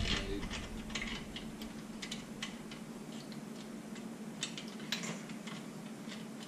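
Light, irregular clicks and taps, a few a second, as a screw and the parts of a climbing tree stand are handled during assembly.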